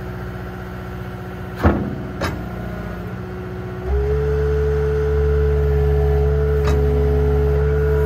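Cat 279D compact track loader's diesel engine running at idle, with two sharp knocks about a second and a half and two seconds in. About four seconds in the engine speeds up and gets louder, with a steady whine over it as the bucket is worked, and one more knock near the end.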